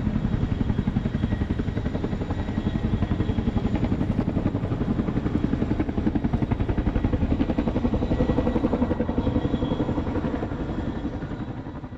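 Boeing CH-47 Chinook tandem-rotor helicopter passing overhead: a rapid, steady rotor beat that fades away over the last second or two.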